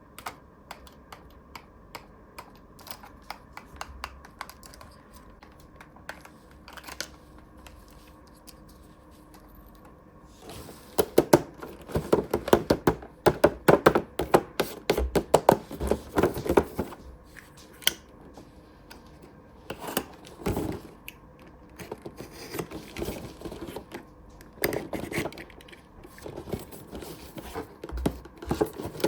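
Close-miked unboxing of a plastic toy playset: pieces and packaging being handled. Scattered faint clicks and taps at first, then from about ten seconds in dense runs of quick clicking and rustling, with more near the end.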